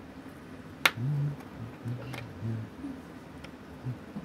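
A sharp metallic click about a second in, then a few much fainter ticks, as watchmaker's tweezers work small parts out of a Seiko 6139 chronograph movement.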